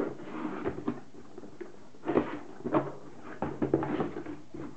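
A headset's retail box being handled and opened by hand: irregular knocks, taps and rustles of the packaging.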